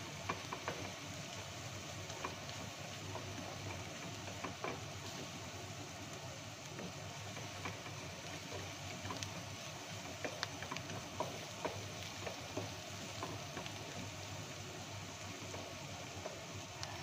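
Oil sizzling steadily in a pot as chopped onion is fried, with a wooden spatula stirring and scraping through it and scattered light clicks and pops.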